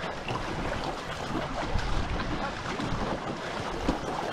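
Water rushing and splashing around a two-person racing canoe under way, with wind buffeting the microphone.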